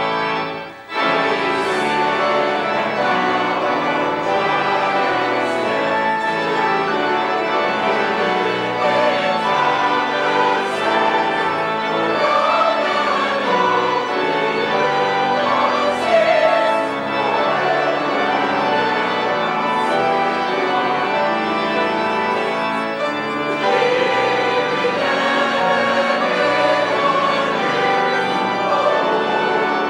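Church organ playing sustained hymn chords with a choir singing along. The organ briefly cuts out about a second in.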